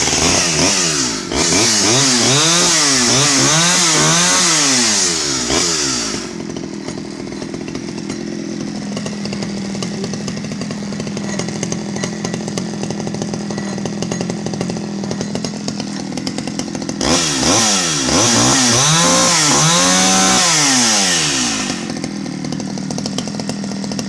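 Stihl 011 AVEQ 41cc two-stroke chainsaw, freshly restarted, revving up and down for about six seconds before settling to a steady idle. Near the end it is revved again for a few seconds and comes back to idle fast.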